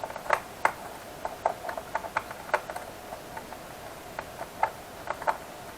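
Small, irregular clicks and ticks from a screwdriver working the plastic bottom-case screws of a laptop.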